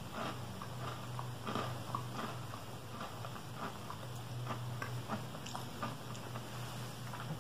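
Close-up chewing of crunchy ginger nut biscuits: irregular small crunches and mouth clicks, over a steady low hum.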